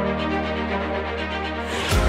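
Background music: sustained electronic chords, with a rising whoosh building over the last half second.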